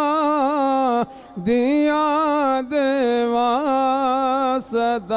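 A man singing a naat, a devotional song in praise of the Prophet, solo with no instruments, through a microphone. He holds long notes with a wavering, ornamented line and stops briefly for breath about a second in and again near the end.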